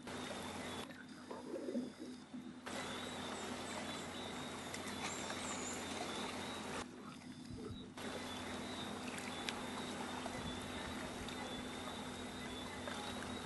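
Birds calling, a few short high chirps among them, over a steady outdoor hiss with a thin, steady high-pitched whine.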